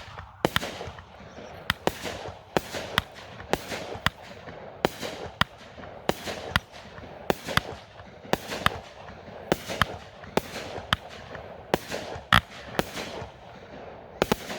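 A 16-shot 200-gram consumer fireworks cake with 3/4-inch tubes firing: a steady string of sharp bangs, about two a second and often in close pairs, as the shells lift and break, with a hiss between them.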